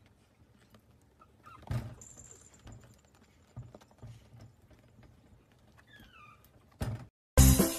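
A small puppy stirring on a blanket: faint rustles and soft knocks, with a louder thump about a second and a half in and a short falling squeak about six seconds in. A sharp thump comes just before the end, then loud music starts abruptly.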